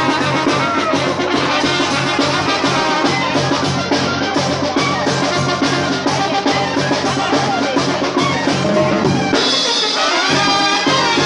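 Brass band playing a lively tune, trumpets and a sousaphone over drums, with the bass briefly dropping out near the end.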